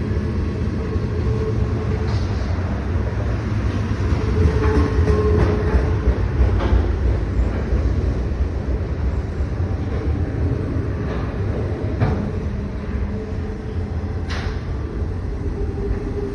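Norfolk Southern manifest freight train rolling past: a steady, heavy rumble of wheels on rail, with scattered clicks and brief thin squeals.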